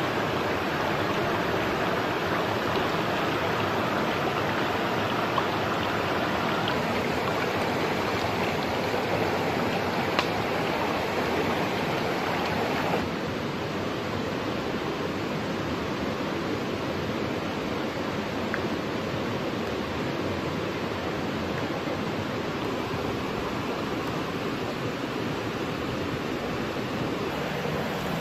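Stream water rushing over rocks, a steady noise. About halfway through it drops a little in level and turns duller.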